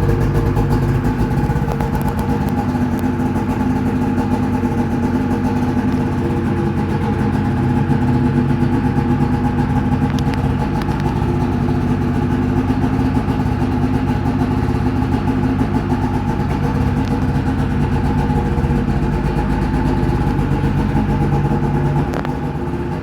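Ski-Doo MXZ X 600 SDI snowmobile's two-stroke twin engine idling steadily, just after being pull-started.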